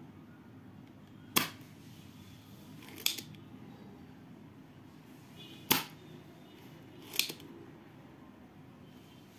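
Spring-loaded desoldering pump (solder sucker) firing, four sharp snaps a second or two apart as its plunger shoots back, sucking melted solder off a circuit board's joints to free a capacitor.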